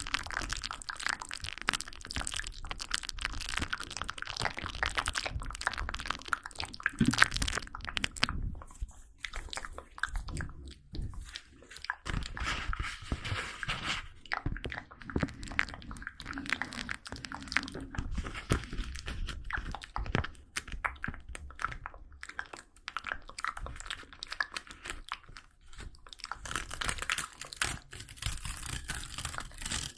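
Close-miked crunching and crackling: many small crisp clicks in quick succession, easing off briefly twice.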